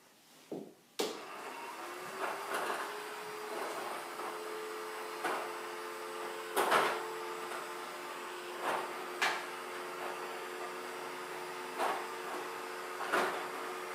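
Newgy Robo-Pong 1040 table tennis robot running: its motor hum rises briefly and settles into a steady drone about a second in. Sharp ping-pong ball clicks come every second or two, some in quick pairs.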